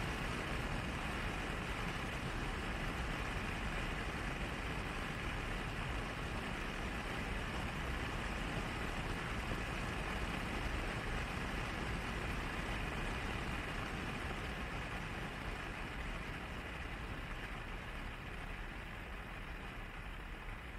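A vehicle driving steadily: a continuous mix of wind and road rumble, easing slightly toward the end.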